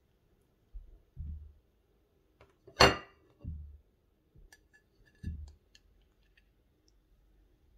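Metal cake server and porcelain plate clinking and knocking while a slice of crumble cake is lifted out and served, with one sharp clink a little under three seconds in, a few duller thumps around it and light clicks afterwards.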